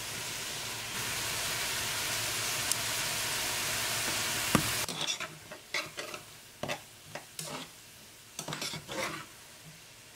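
Diced onions, celery and bell peppers sizzling as they sauté in butter in a skillet, with a steady hiss that cuts off suddenly about five seconds in. After that a spoon scrapes and stirs through the vegetables against the pan in a series of separate strokes.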